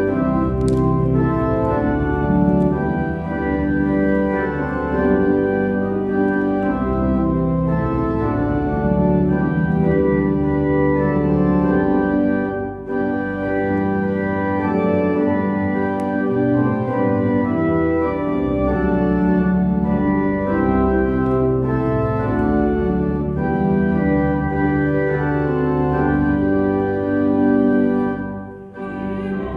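Church organ playing a hymn in full, sustained chords, with a brief break between phrases about thirteen seconds in and another near the end.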